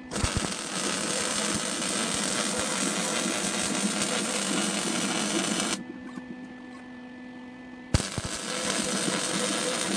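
MIG welder arc crackling steadily while laying a bead, cutting off about six seconds in, leaving a steady hum. A fresh arc strikes about two seconds later and runs on.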